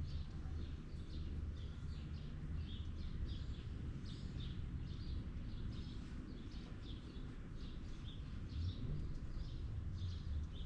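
Small birds chirping repeatedly, several short chirps a second, over a steady low rumble.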